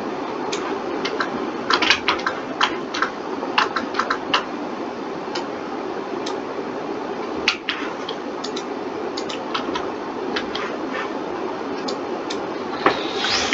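Irregular clicking of a computer keyboard and mouse, with a denser run of clicks near the end, over a steady hum of computer fan noise.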